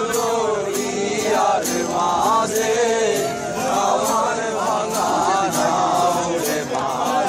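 A group of people singing together to a steadily strummed acoustic guitar, with a man's voice leading.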